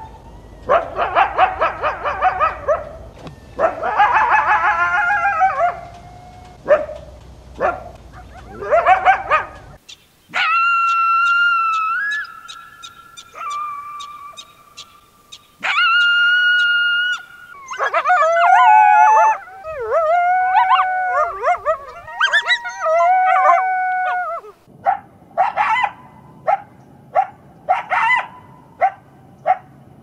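Coyotes calling: a chorus of quick yips and warbling howls for the first ten seconds or so, then long, steady, high howls, then howls that rise and fall in pitch, and near the end a string of short, sharp barks.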